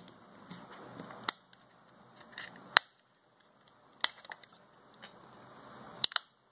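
Sharp plastic clicks and snaps as a Microsoft Lumia 535's plastic frame clips are prised apart by hand, with faint handling rustle between them. The clicks are scattered, the loudest about halfway through, with a cluster after that and a quick pair near the end.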